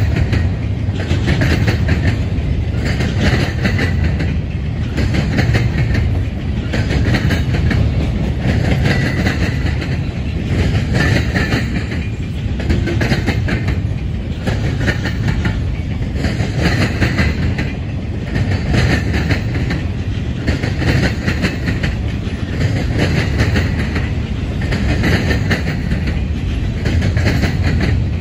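Double-stack intermodal freight train's container well cars rolling past close by: a steady heavy rumble of steel wheels on rail, with a regular clatter of the wheels that comes round about once a second.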